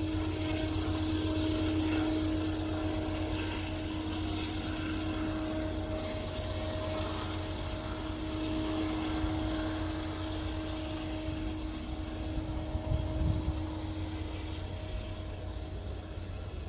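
GE AC44i diesel-electric locomotive running at the head of a grain train as it slowly approaches: a steady engine drone with a held hum over a low rumble.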